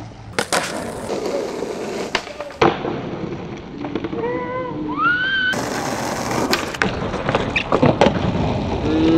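Skateboard wheels rolling on asphalt, broken by sharp clacks of the board popping, flipping and landing, several times over. A few short rising high-pitched calls come around the middle.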